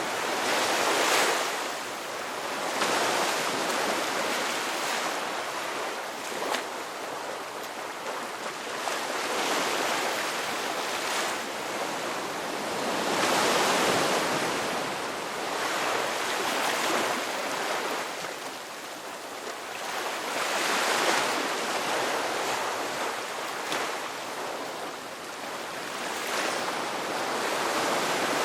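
Sea waves breaking and washing in, a steady rush that swells and fades every few seconds as each wave comes in.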